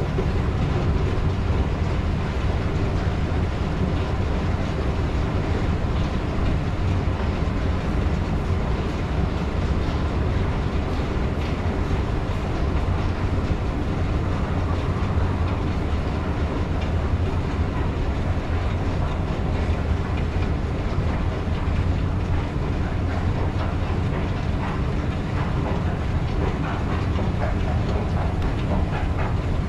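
Long escalator running while being ridden: a steady low mechanical hum with a fine, even rattle of the moving steps.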